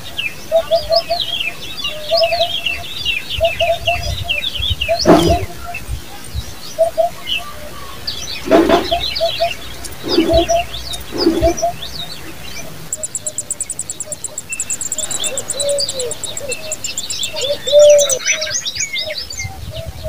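Small birds chirping in quick high runs, over a low cooing note repeated about once a second. A fast, very high trill comes in past the middle, and there are a few louder sharp sounds.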